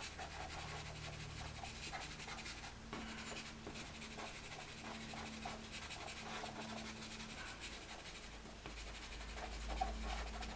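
A Caran d'Ache black pastel pencil scribbling on pastel paper in many quick, short scratchy strokes.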